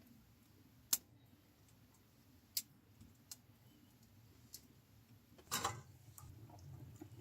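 Wood fire crackling: irregular sharp pops, about four spaced through the first few seconds, then a louder, longer crackle near the end, over a faint low rumble.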